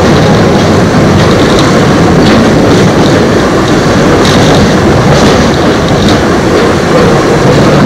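Eizan Electric Railway electric train with nose-suspended traction motors running at speed on the Kurama Line, heard from on board: steady wheel-and-rail running noise with several sharp clicks.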